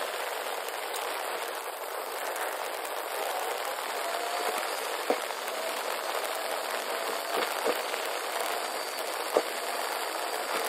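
Steady road and air noise inside a moving car's cabin, with a faint whine and a few light clicks.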